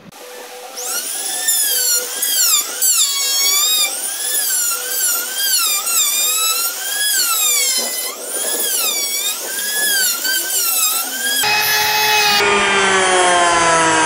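Trim router cutting into a wooden door frame: its high whine wavers, dipping and recovering in pitch over and over as the bit bites into the wood. About eleven seconds in the sound changes abruptly to a steadier whine that slowly sinks in pitch.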